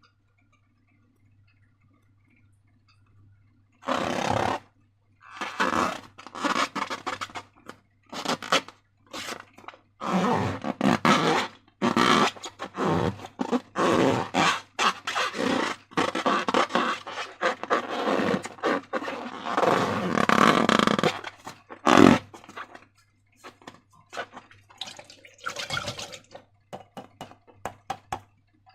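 Slime being squished and kneaded by hand, making wet squelches and little air-pocket pops in irregular bursts. It starts about four seconds in, runs densest through the middle and thins to scattered small clicks near the end.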